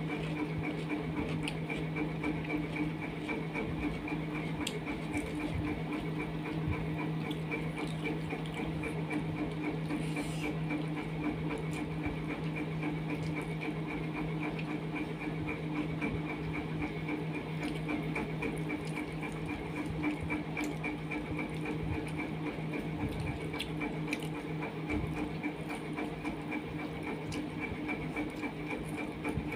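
A steady machine hum, a low drone with a higher whine over it, never changing, with a few faint soft clicks and smacks of hand-eating rice and curry from a steel plate.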